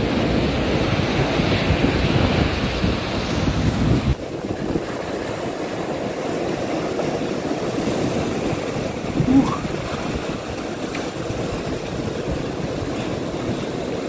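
Rough sea surf breaking and washing up a pebbly beach in a storm, a continuous rushing noise. Wind rumbles on the microphone through the first four seconds, then drops away abruptly.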